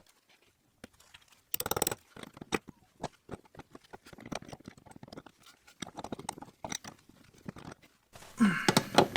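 Metal clicks, knocks and scraping as a stuck shifter selector rod on a BMW E36's ZF gearbox is worked and pried loose by hand. A short strained voice sound comes near the end.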